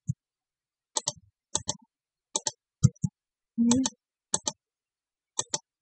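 Computer mouse buttons clicking about seven times, each a quick press-and-release double click, as points are picked. A short low hum of voice comes near the middle.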